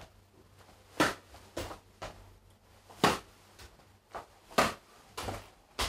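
A footbag being tossed by hand, kicked up off the top of the foot and caught again, over and over: short, sharp taps of the bag against the shoe and the palm, about eight in all, several in pairs about half a second apart.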